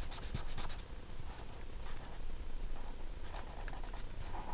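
Felt-tip marker scratching in short strokes on adding machine tape.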